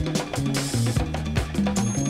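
Hip hop beat: a steady drum pattern over a stepping bass line.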